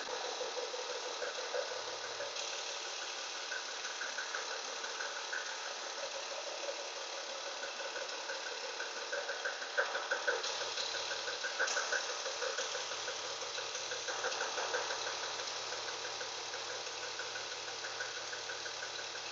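1998 BMW E36 328i's inline-six engine running at a steady idle with a rapid, steady knocking; the owner does not know its cause and is asking for help.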